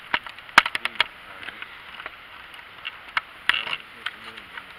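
Irregular sharp clicks and crackles of handling noise on a handheld camcorder. A faint low voice comes in about three and a half seconds in.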